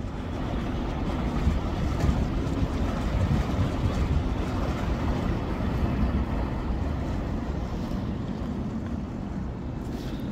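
Wind buffeting the microphone over the steady rush of the flood-swollen River Thames.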